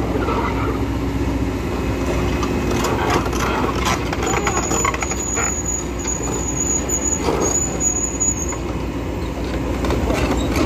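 Truck engine running steadily, with a thin high-pitched squeal over it from about four seconds in, and a few short knocks.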